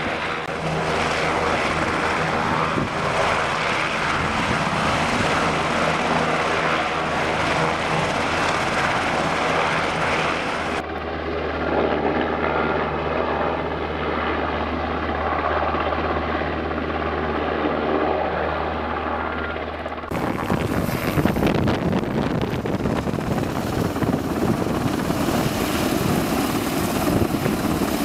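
Sikorsky S-70i Black Hawk helicopter, its twin turbines and main rotor running continuously. The sound changes abruptly twice, about a third and two thirds of the way through; in the last part the helicopter flies close overhead and is loudest and roughest.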